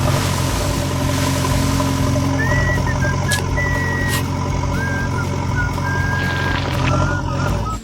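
A machine engine running steadily, a constant low hum with a steady whine over it. Short high chirps come and go from about the middle onward.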